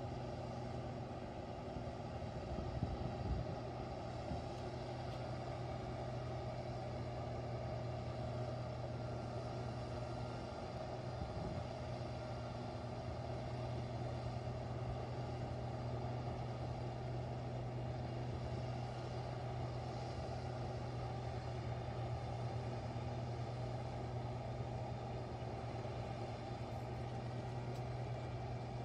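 Large truck-mounted rotary snow blower running steadily, a constant engine drone with a low hum that holds the same pitch throughout.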